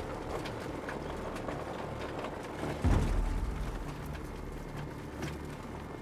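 Wood chipper running: a steady low engine drone with scattered clicks, and a sudden heavier low surge about three seconds in.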